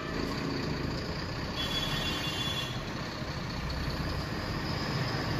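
Mercedes-Benz coach's engine running with a steady low rumble. A faint high tone sounds for about a second around two seconds in.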